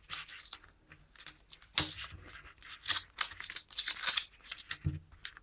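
Paper insert rustling and crinkling as fingers handle it inside a plastic Blu-ray case, in irregular scrapes, with two knocks, one about two seconds in and one near the end.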